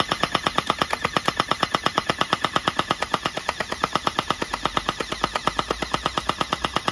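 Uzi gel ball blaster firing full-auto: a steady, rapid stream of sharp shots, about ten a second, as it empties its hopper of gel balls.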